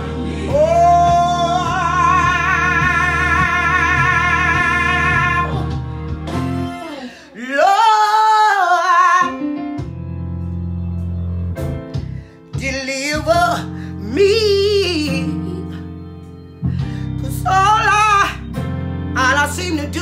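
A woman singing a gospel song over steady instrumental accompaniment. She holds one long, wavering note for about five seconds, then sings shorter phrases that slide up and down in pitch.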